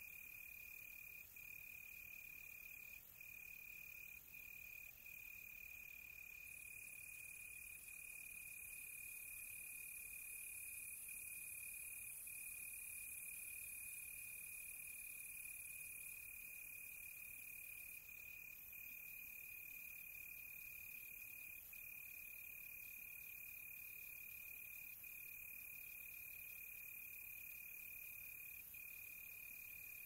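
Faint, steady night cricket trill at one high pitch, broken by short gaps every few seconds, over a faint high hiss.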